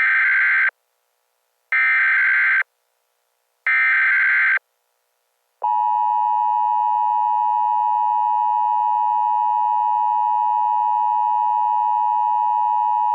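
Emergency Alert System tones: three short screeching bursts of SAME header data, each just under a second with about a second between them. Then, about five and a half seconds in, the steady two-tone EAS attention signal begins. Together they announce an emergency alert message.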